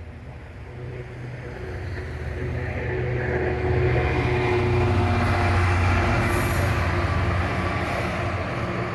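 Container freight train's wagons running past on the rails: a steady low rumble that grows louder over the first four seconds or so and then holds.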